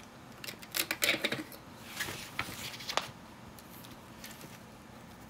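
LEGO bricks being pressed together and handled on a tabletop: a quick run of small plastic clicks in the first second and a half, a brief rustle, then two sharp clicks about two and a half and three seconds in.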